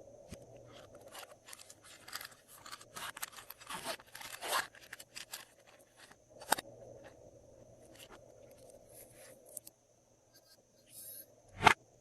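Glossy slime being worked by hand with add-ins mixed into it, giving irregular crackles and clicks. They are busiest a few seconds in, with one sharp click about halfway through.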